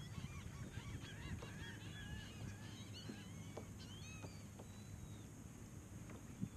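Faint calling from a flock of waterbirds: many short, overlapping calls that rise and fall, over a low rumble of wind on the microphone. There is a single light knock near the end.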